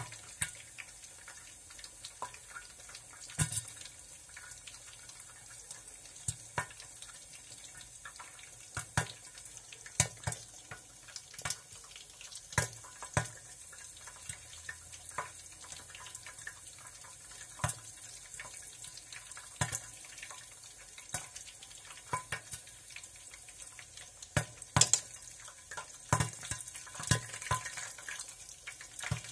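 Irregular sharp pops and crackles, roughly one every second or two and a few louder ones near the end, over a steady hiss, sounding like popcorn popping.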